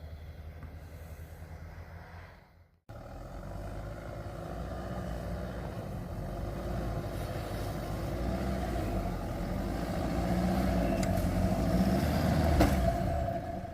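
Toyota Land Cruiser LC150 (Arctic Trucks AT37) driving, its engine growing steadily louder over about ten seconds as it comes closer and is loudest near the end. The sound breaks off at a cut just under three seconds in.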